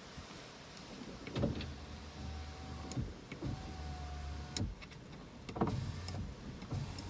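A small electric motor whines in two runs of about a second each. The second run stops with a sharp knock, and a few thumps and clicks sit around them.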